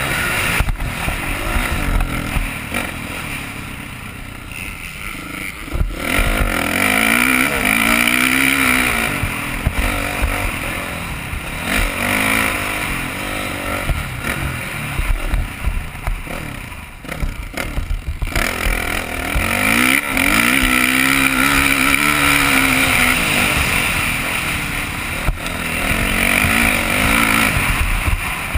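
Motocross dirt bike engine revving up and dropping off again and again as the rider goes through the gears on and off the throttle. Wind rushes over the helmet camera's microphone, with a few sharp knocks along the way.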